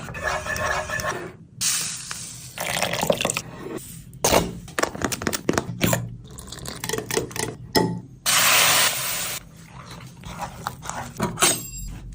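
Food-preparation sounds in quick cuts: liquid being poured in short spells, with clicks and knocks of utensils and containers between them.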